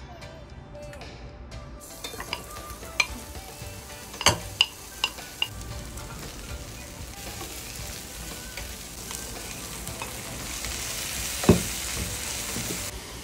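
Onions and lamb tail fat sizzling as they fry in a nonstick pan, with a few sharp knocks of utensils against the pan. The sizzle grows louder over the last few seconds as lamb pieces fry and are stirred with a wooden spatula, with one loud knock near the end.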